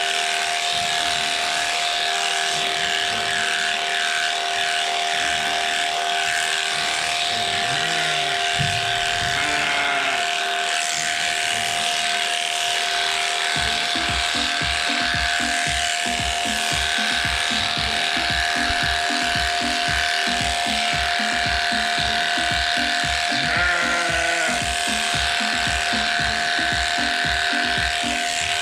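Electric sheep-shearing handpiece running with a steady whine as it cuts through Merino fleece, under background music that picks up a regular beat about halfway through.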